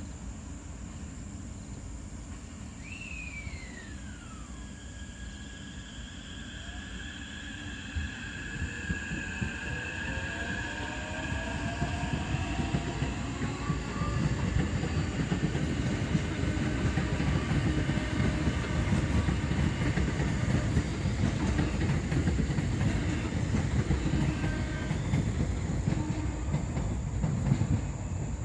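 Taipei Metro C381 electric train moving through a station: a steady wheel-on-rail rumble with gliding and held motor tones above it, growing louder about halfway through. A brief falling tone sounds near the start.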